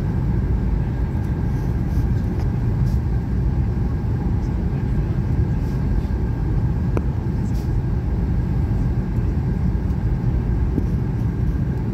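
Steady cabin noise of a Boeing airliner on descent: a low rumble of jet engines and rushing air, with a faint steady whine. A faint click about seven seconds in.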